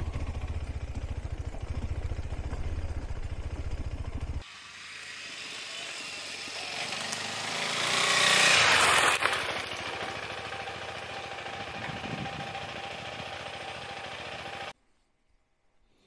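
KTM 390 Adventure single-cylinder motorcycle engine running steadily under way, heard close from on the bike. About four seconds in it switches to the bike riding up toward and past, growing louder to a peak and then easing off, before cutting off abruptly near the end.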